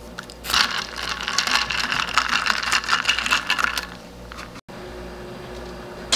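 Ice cubes clinking and rattling against the inside of a stainless steel tumbler as the drink is stirred quickly with a straw, a rapid run of clinks for about three seconds that then stops.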